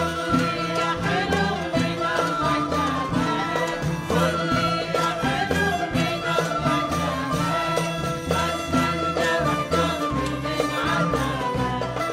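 Live Iraqi traditional ensemble music: ouds and violins playing a winding Middle Eastern melody over a steady percussion beat.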